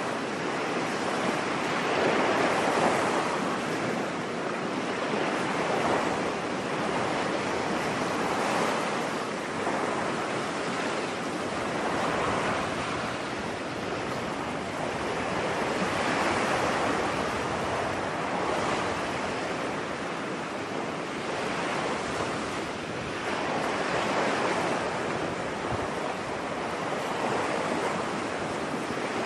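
Ocean surf washing onto a beach: a steady rushing hiss that swells and ebbs every few seconds as waves break and draw back.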